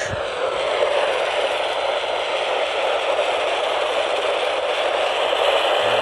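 Steady static hiss from a handheld emergency weather radio's speaker, tuned to a frequency with no signal.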